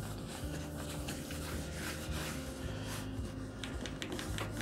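Low humming tones that step in pitch every half second to a second, typical of 3D printer stepper motors running in the room, with faint scratchy rubbing of a paper towel wiped over a tablet's screen.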